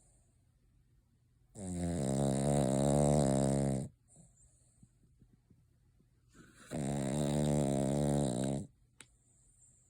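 A sleeping Cavalier King Charles Spaniel snoring: two long, buzzing snores of about two seconds each, a few seconds apart, with quiet between them.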